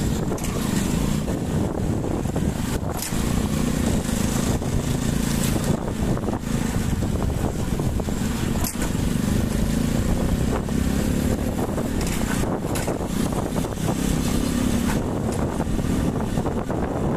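Motorcycle engine running at a steady riding speed, with wind noise on the microphone.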